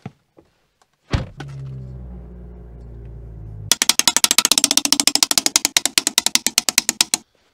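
BMW M2's turbocharged straight-six starting about a second in with a brief loud flare, then idling steadily. Then, about halfway through, a rapid, even clicking at around ten a second for some three seconds.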